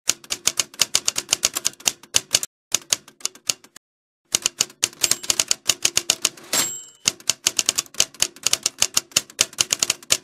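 Manual typewriter keys struck in rapid runs, several keystrokes a second, with short breaks between lines. A carriage-return bell rings once with a rasping slide about six and a half seconds in.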